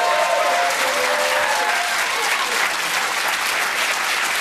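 Studio audience applauding, a dense steady clapping of many hands, with a few voices calling out over it in the first second and a half.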